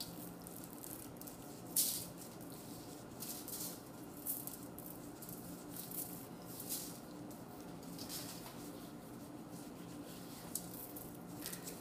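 Seasoning rub shaken from a shaker jar onto a pork shoulder: a string of short, dry, irregular rattles. Underneath are softer rubbing and crinkling sounds as a gloved hand works the rub into the meat on aluminium foil, and a faint steady hum.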